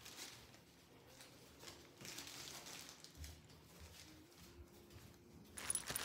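Very quiet: faint rustling of clothing and handling, close to room tone. Just before the end it turns louder, with small clicks and a faint high ringing.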